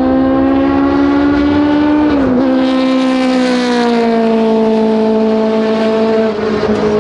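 A car's engine running at high revs on a race track, a loud sustained note that drops in pitch about two seconds in and then sinks slowly.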